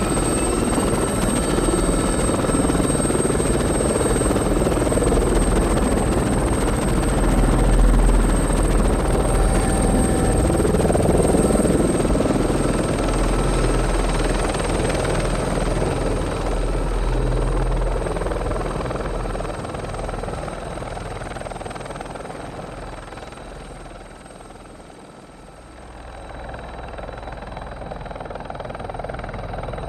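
Aérospatiale Gazelle helicopter running, a steady high turbine whine over dense rotor noise. About twenty seconds in it fades, is quietest around twenty-five seconds, then grows louder again.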